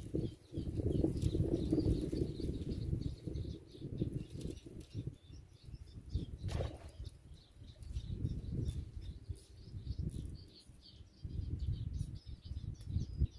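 Wind rumbling on the microphone in uneven gusts, with faint, high bird chirps scattered throughout.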